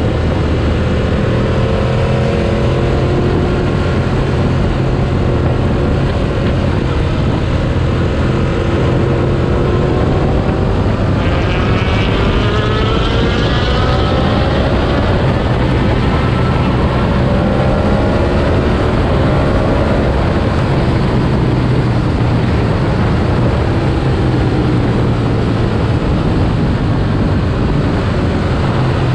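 Naked sport motorcycle on the move, its engine note over a steady low rumble. The note climbs through the revs from about nine to fourteen seconds in, then drops away around twenty seconds.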